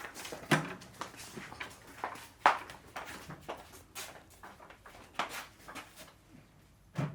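Irregular knocks and clatters, as of hard objects being handled and set down, the loudest about two and a half seconds in.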